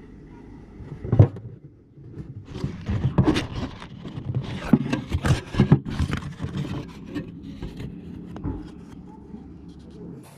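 Knocks, scrapes and rubbing of a metal time-capsule tin being handled as things are put into it, picked up from inside the tin. One loud knock comes about a second in, a busy stretch of knocks and scrapes follows in the middle, and the handling grows quieter near the end.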